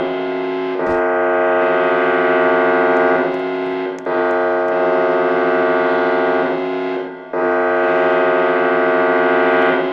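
Electronic siren sounding a steady, many-toned chord that dips briefly and comes back about every three seconds, with a thump about a second in.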